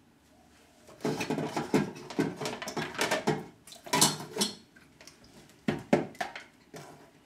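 Kitchen items clattering and knocking as they are moved about in a search for the blender lid, a busy run of knocks from about a second in, then a couple more near the end.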